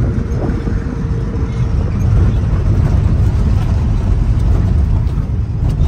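Steady road and engine rumble heard from inside a moving vehicle's cabin; it grows somewhat louder about two seconds in.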